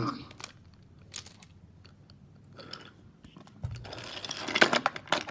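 Wooden toy train cars knocking and clacking as they are pushed along and tip off the track, with a loud knock at the start and a few light clicks after it. From about three and a half seconds in, a dense crunchy rustling.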